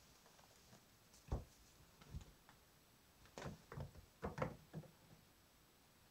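Kittens at play, their paws and bodies bumping and scuffling on a wooden floor and against a soft fabric pet carrier: a single soft knock about a second in, another shortly after, then a quick flurry of five or six knocks and scuffs past the middle.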